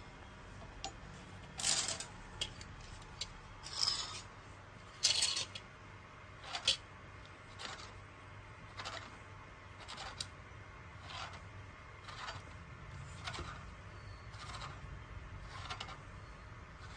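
Clothes hangers scraping and clicking along a metal clothes rail as garments are pushed aside one by one, with a short scrape about once a second. The loudest scrapes come in the first seven seconds.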